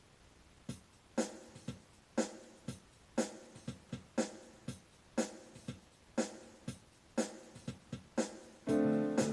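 Electronic drum rhythm from a backing track made on a Casio LK-218 keyboard, a steady beat of about two hits a second with the stronger hits a second apart. Near the end a sustained electric-piano chord comes in on the keyboard.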